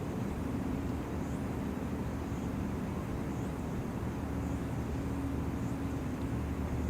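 Steady low rumble with a constant low hum, typical of a large ship's engines and machinery running, with faint high chirps about once a second.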